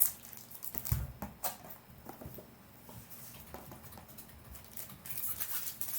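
Hands handling a trading-card hobby box: scattered light taps and clicks, a couple of soft knocks, and denser crinkling of wrapping near the end.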